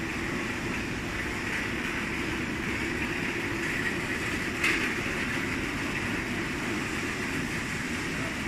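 Steady mechanical hum of running machinery, with one short sharp click about four and a half seconds in.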